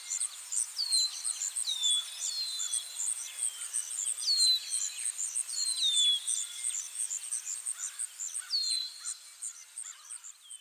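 Outdoor insect and bird chorus: a high insect chirping in a steady train of about four pulses a second, with a bird's short whistled calls that slide down in pitch, repeated every second or so.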